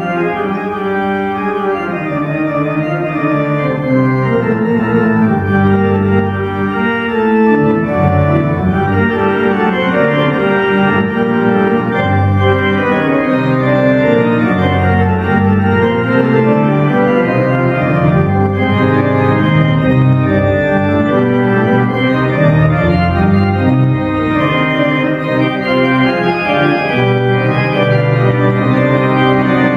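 Three-manual, 40-rank Schantz pipe organ playing a full, continuous passage: held chords with moving inner lines over a pedal bass that changes note every second or so.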